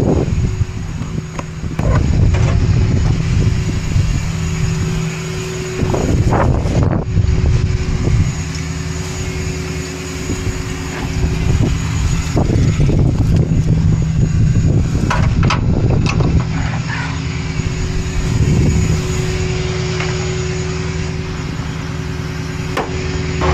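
Tow truck's engine running steadily, with louder bursts of noise from movement close to the microphone now and then.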